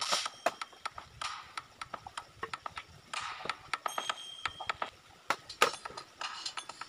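Bamboo poles and wooden planks knocking and clattering irregularly as they are handled and shifted, with short bouts of rustling.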